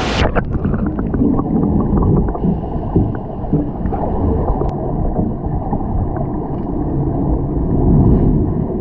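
Muffled underwater sound of a wave pool heard through a camera held just below the surface: a dense low churning of moving water with faint ticks of bubbles.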